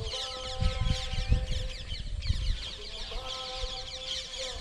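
Many birds chirping together in a dense, continuous chatter of quick high calls, over a few faint steady tones and irregular low rumbles in the first half.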